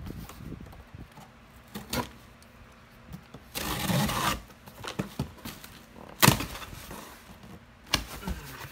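A cardboard shipping box being handled and opened by hand: a few sharp knocks and taps, and a rough scraping, tearing noise lasting about a second near the middle.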